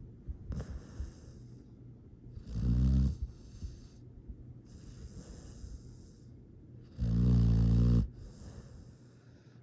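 A sleeping pet snoring: two loud, rumbling snores, about three and seven seconds in, the second about a second long, with softer airy breaths between them.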